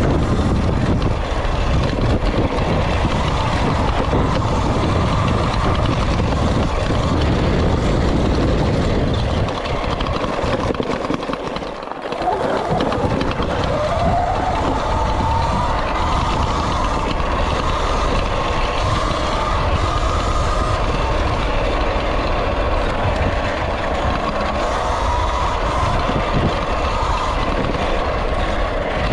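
Sur-Ron Light Bee electric dirt bike ridden over a rough dirt trail: the whine of its electric motor and chain drive, under wind buffeting the microphone and the rattle of the bike over the ground. About ten seconds in the bike eases off, then the whine climbs in pitch as it speeds up again.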